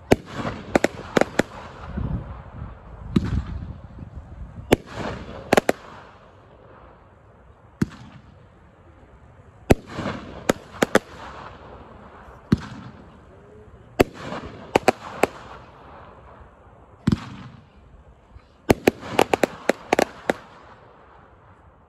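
Flash Bang consumer firework cake firing its aerial shots: clusters of sharp bangs and crackling reports come about every four to five seconds, with single reports in between.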